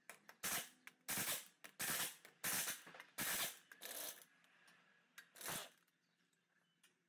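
Impact wrench run in a series of short bursts, each under half a second, spinning off wheel lug nuts that have already been broken loose.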